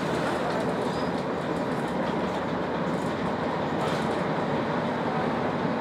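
Jelcz 120M city bus with manual gearbox, heard from inside the passenger cabin while driving: steady engine running and road rumble.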